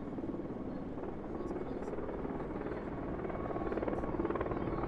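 Approaching military helicopters, a Mi-26 heavy-lift helicopter with a Mi-8AMTSh: a distant rotor beat growing steadily louder as they near.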